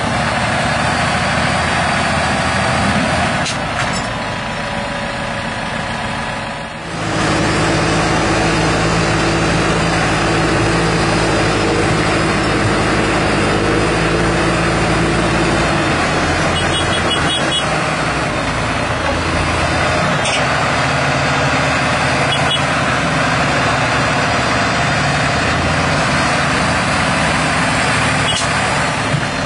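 Diesel engines of a Massey Ferguson 7618 and a Claas Arion 540 tractor, one of them straight-piped, running loud and hard as they work in deep mud. The sound dips briefly about six seconds in, then a strong engine note under heavy load holds for about ten seconds before settling into a steady loud drone.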